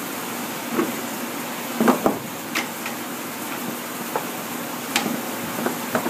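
Wooden Langstroth frame parts knocking and clacking as they are handled and set into a wooden frame-assembly jig: about seven light knocks, the loudest two close together about two seconds in.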